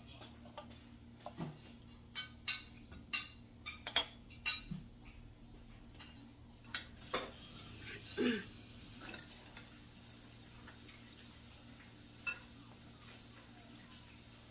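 Spoons clinking and scraping against a ceramic bowl and plate while eating: a quick run of clinks in the first few seconds, then a few scattered ones.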